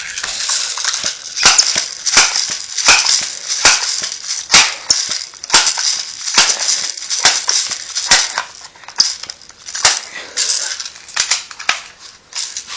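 A multi-pump pneumatic BB gun being pumped up to charge its air. There are about ten strokes, a little more than one a second, and each is a sharp clack with a rush of air.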